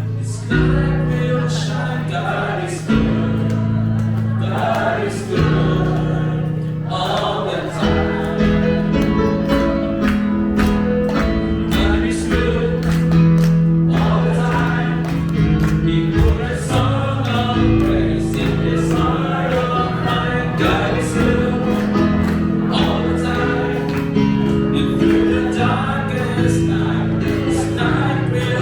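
Worship song: voices singing over instrumental accompaniment with a steady beat.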